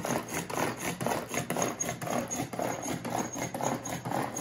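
Pull-cord manual food chopper being worked, the cord yanked again and again at about three pulls a second, each pull giving a whirring, rattling rush as the blades spin and chop garlic and green chilies in the plastic bowl.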